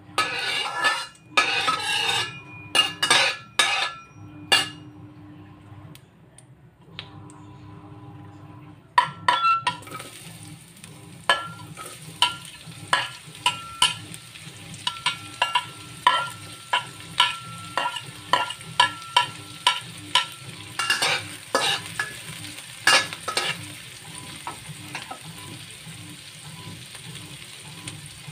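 Chopped red onion frying in hot oil in a stainless steel wok, sizzling steadily from about nine seconds in, while a metal spatula scrapes and clicks against the pan as it stirs. A few loud scrapes of the spatula come in the first few seconds, before the sizzling starts.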